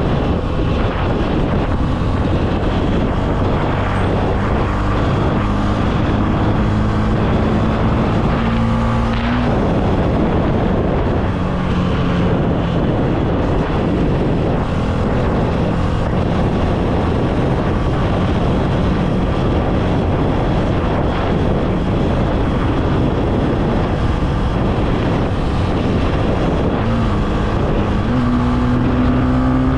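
Honda CB300F single-cylinder motorcycle engine running under way, with wind rushing over the microphone. The engine note climbs twice, about a third of the way in and near the end, each time dropping sharply afterwards.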